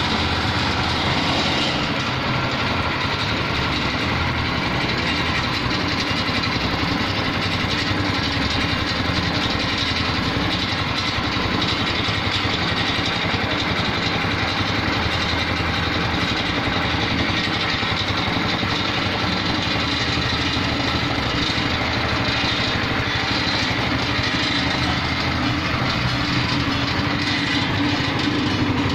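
Small single-cylinder petrol engine running steadily, driving a dough mixer through a worm-gear reducer.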